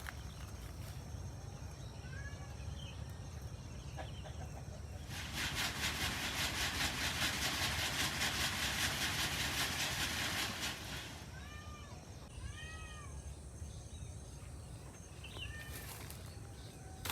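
A cat meowing in short, arching mews, a few at a time: once about two seconds in, several in a row after the middle, and again near the end. In the middle, a louder even rasping buzz with a fast fine pulse lasts about five seconds.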